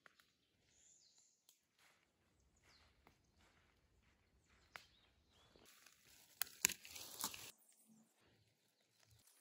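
Near silence, broken by a few faint ticks and, about six to seven seconds in, a short stretch of light rustling with several sharp clicks.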